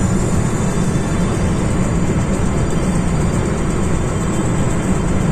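Car driving at highway speed, heard from inside: a steady low rumble of tyres and engine.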